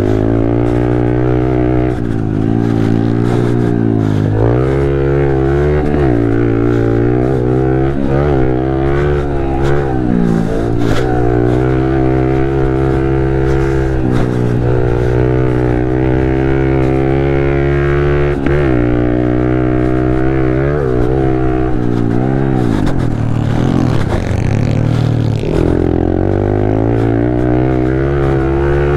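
Pit bike engine being ridden hard, revving up and dropping back again and again as the rider accelerates, shifts and backs off through the corners and straights of a dirt motocross track. Heard from on board the bike.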